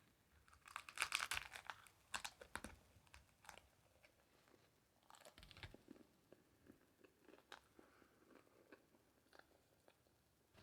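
Quiet, close-up chewing of a crunchy hard-shell beef taco. There are several bursts of crisp crunching in the first six seconds, then only scattered soft crackles and mouth clicks.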